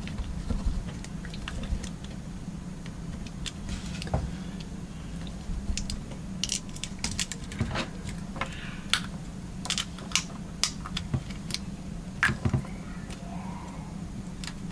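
Small, sharp, irregular clicks and taps of iPhone 6s Plus screen flex cable connectors being pressed against their sockets on the board; they will not snap in because a cable is being pushed onto the wrong socket. A steady low hum runs underneath.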